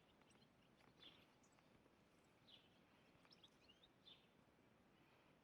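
Near silence with faint, scattered bird chirps, short high calls every second or so.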